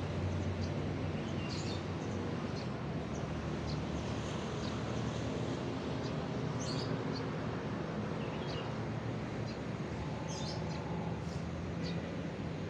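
Birds chirping in short, scattered calls over a steady low rumble of road traffic.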